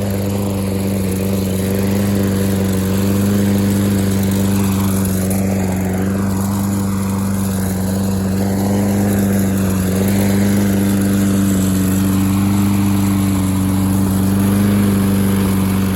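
LawnBoy 10682 mower's 195cc Tecumseh single-cylinder four-stroke engine, warm, running at a steady speed.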